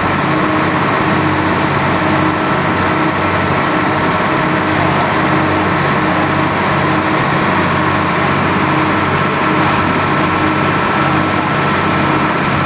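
A motorboat's engine running steadily at cruising speed, a constant drone with a held hum, over the hiss of water rushing along the hull.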